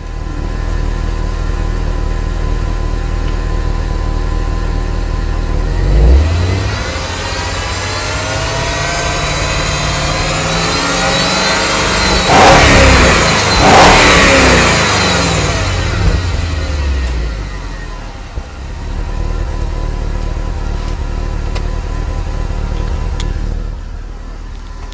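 1997 BMW 840Ci's 4.4-litre V8 idling, then revved. The pitch climbs from about six seconds in, peaks loudly twice, and falls back to a steady idle a few seconds later.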